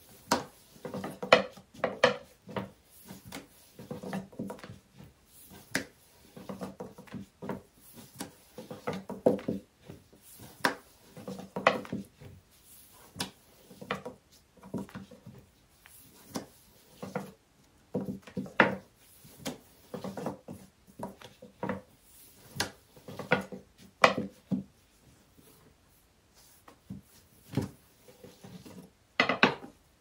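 Long, thin wooden rolling pin (oklava) rolling out yufka dough on a table: irregular runs of soft wooden knocks and rubbing against the tabletop, with short pauses between strokes. A louder clatter comes just before the end.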